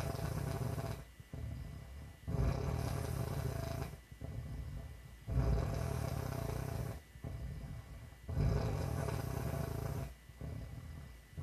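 A woman snoring: about four snores, one roughly every three seconds, each lasting about a second and a half, with a quieter breath between them.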